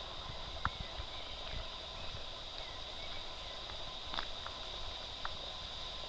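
Footsteps of someone walking on an asphalt lane, with a few sharp clicks. A steady high-pitched background hum runs underneath.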